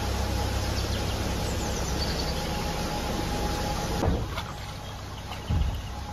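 Narrowboat engine running at low revs with a steady low rumble as the boat moves slowly into a canal lock. Two brief thumps come about four and five and a half seconds in.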